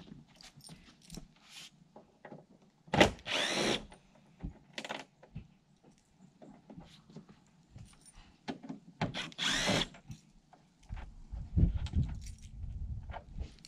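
Cordless drill/driver running in short whirring bursts as it backs screws out of a rooftop RV air conditioner's plastic shroud: a longer burst about three seconds in, a short one near five seconds and another about nine seconds in. Small clicks and knocks of handling come between the bursts.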